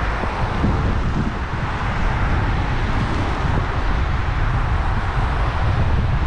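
Wind buffeting the microphone of a bicycle-mounted camera while riding, a steady low rumble, over the hiss of car traffic on a wet road.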